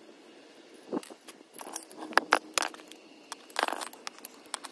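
Small metal pieces clinking and knocking as they are handled and set down, a run of sharp irregular clanks with a brief metallic ring in the middle.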